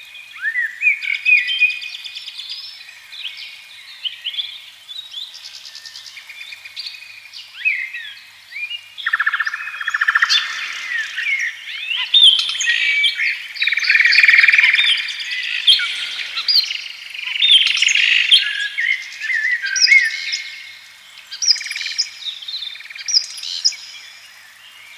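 Several songbirds singing and calling at once: overlapping chirps, trills and short rising whistles.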